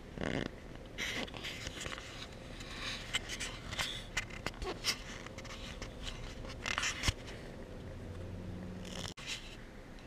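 Irregular rustling and scraping of a towel and clothing, with handling noise on the camera, in short uneven bursts.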